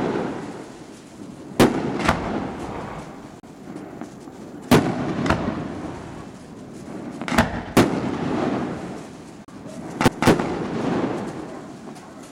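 Aerial fireworks going off: sharp bangs in pairs or small clusters every two to three seconds, each followed by a rumble that dies away.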